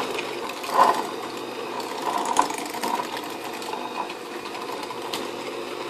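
Electric hand mixer running steadily, its twin wire beaters whipping softened cream cheese in a glass bowl, with a few brief clicks along the way.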